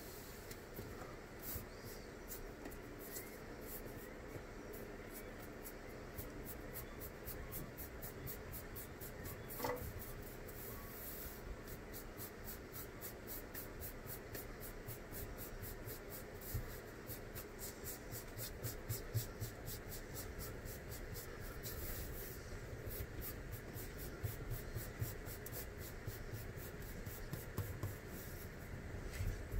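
Faint scratchy rubbing of hands pressing and smoothing a flooring strip down onto contact cement, in quick repeated strokes with a few soft knocks.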